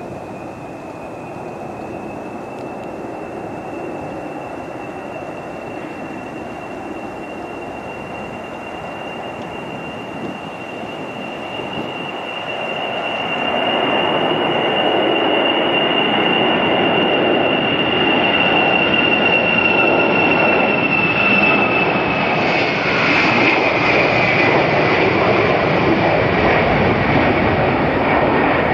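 The four Soloviev D-30KP turbofans of an Ilyushin Il-76TD running at takeoff power during the takeoff roll and lift-off. A steady high whine sits over a broad roar that grows louder about halfway through. Near the end the whine drops in pitch as the aircraft passes.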